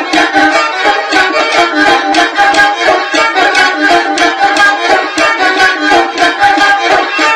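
Kamancheh, a bowed spike fiddle, played solo: a fast, lively folk melody in short, quick bow strokes.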